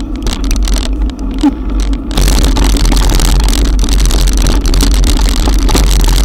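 Wind rumble on an action camera's microphone with the hiss of heavy rain, from riding through a cloudburst; the hiss turns suddenly louder and steadier about two seconds in.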